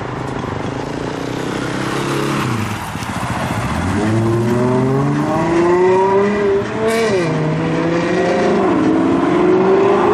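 A modified car's engine revving as it pulls away. Its pitch climbs from about four seconds in, drops sharply at a gear change about seven seconds in, then climbs again.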